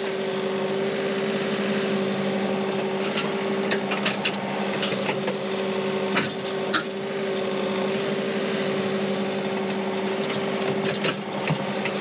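John Deere 2038R's three-cylinder diesel engine running steadily at about 2000 RPM while it drives a 270B backhoe that is digging. Over the engine come scraping and scattered knocks from the bucket working the dirt, the sharpest about six to seven seconds in.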